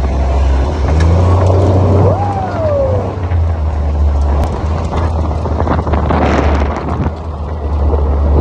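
ATV engine running steadily during a ride, with wind buffeting the microphone. About two seconds in, a short tone rises and then falls.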